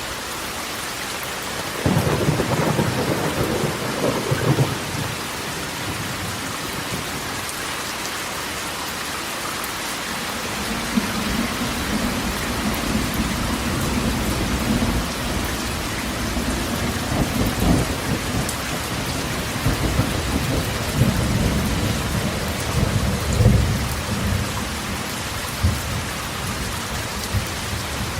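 Rain falling steadily on a corrugated metal roof. Thunder breaks suddenly about two seconds in and fades after a few seconds. A longer, swelling rumble of thunder runs from about ten seconds in until shortly before the end.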